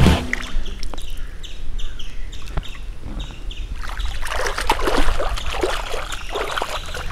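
A splash into pond water, followed by small birds chirping over and over. From about four seconds in, a bare foot kicks and splashes in the water.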